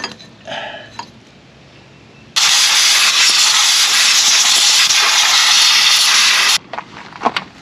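A blast of compressed air from an air-hose blow gun: a loud, steady hiss of about four seconds that starts and cuts off suddenly, blowing dirt and debris out from around the crankshaft pulley of a long-neglected engine. A few light clicks come before and after it.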